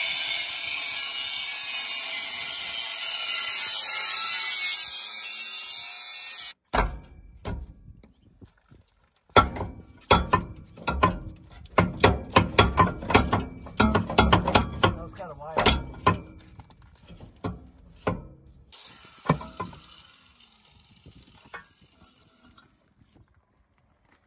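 Angle grinder cutting through a rusty steel mount, a steady high grinding that cuts off about six and a half seconds in. After a pause comes a run of loud metal clanks and knocks for several seconds as the cut rusty pipe and steel are knocked and worked loose.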